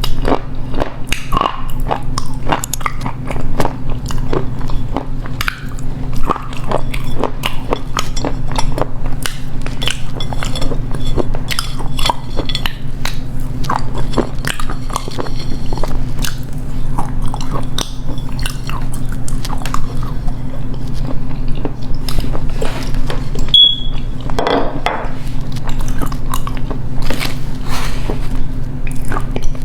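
Close-miked biting and chewing of edible clay: a dense run of sharp, dry crunches all through, over a steady low hum.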